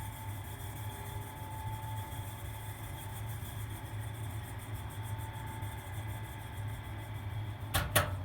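Kitchen ventilation fan running with a steady low hum and a fainter whine that swells and fades, the abnormal noise the owner reports from it. Two sharp clicks near the end.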